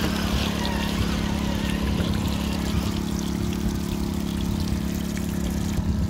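A portable generator running with a steady low hum, over water trickling and pouring down a small artificial waterfall.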